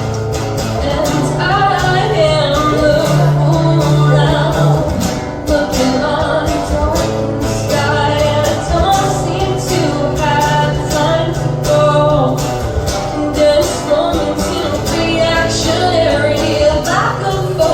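Live band playing a song, with singing over guitar and a steady drum beat.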